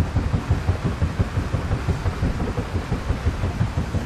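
Paddle steamer Waverley under way: her paddle wheels and three-cylinder triple-expansion steam engine give a low, rapid rhythmic thumping of about five or six beats a second, over a steady hiss of wash and air.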